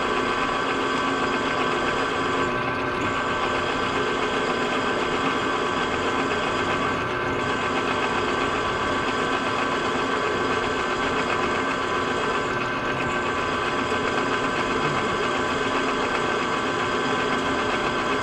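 Drill spindle in a machine-shop mill running steadily, a constant mechanical whine with several steady tones, while drilling the tap-drill hole in a cast transmission extension housing.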